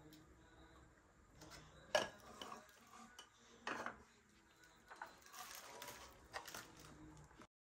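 Glass jars and other bathroom accessories being set down and shifted on a plastic trolley shelf: a few light clinks and knocks over faint handling noise, the sharpest about two seconds in. The sound cuts off just before the end.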